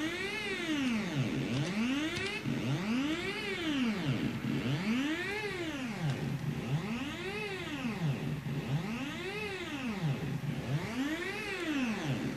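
Buzzy electronic square-wave tone from a prototype shift register module, its pitch sweeping smoothly up and down about every two seconds as the function generator's swept clock rate bounces between its start and stop frequencies.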